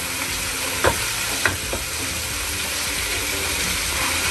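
Chicken pieces sizzling as they sauté in oil in a pot, with a stirring utensil knocking against the pot a few times about a second in.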